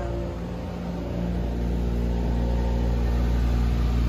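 Dehumidifier running with a steady mechanical hum, drying out a water-soaked bathroom wall; it grows louder about a second in.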